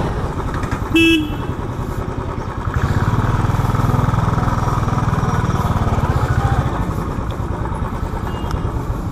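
Royal Enfield Classic Signals 350's single-cylinder engine running at low road speed with its steady, even thump under the rider. A short horn toot comes about a second in, and the engine grows louder for a few seconds in the middle before easing off.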